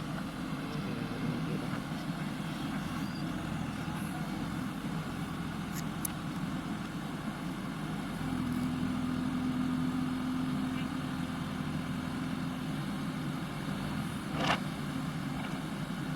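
JCB backhoe loader's diesel engine running steadily, with a steady higher hum that comes in about halfway and holds for several seconds. A single short knock near the end.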